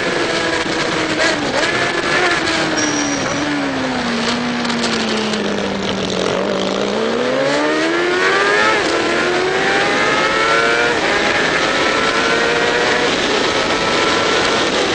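Onboard sound of a racing Triumph motorcycle's engine over wind rush. The revs fall steadily as it slows for a corner about six seconds in, then climb again in several rising sweeps, each broken by an upshift, as it accelerates away.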